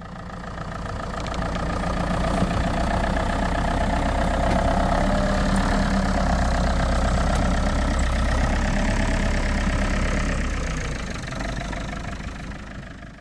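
An engine running steadily, fading in at the start and fading out near the end.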